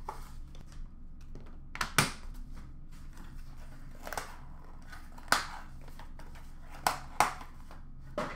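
Hands handling a trading-card box and a clear plastic card case on a glass display counter: several sharp taps and knocks, the loudest about two seconds in, with faint rustling between.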